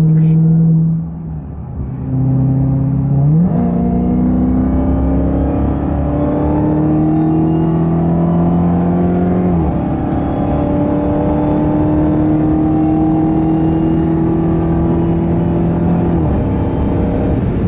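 2021 Dodge Charger SRT Hellcat Redeye's supercharged 6.2-litre V8 pulling under throttle. It eases off briefly about a second in, picks up again, and then its note climbs steadily in pitch, drops at an upshift near the middle, and climbs again before another upshift near the end.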